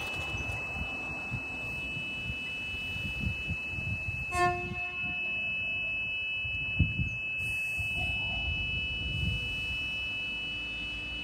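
Metro Trains Melbourne X'Trapolis 100 electric train moving off from the platform and approaching, a low rumble with a steady high thin tone over it. A brief horn toot sounds about four and a half seconds in.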